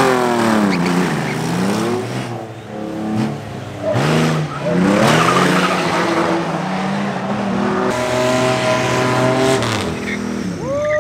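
Car engines at full throttle on a drag strip, their pitch falling, rising and falling again as the cars rev and pass, then holding steadier for a couple of seconds.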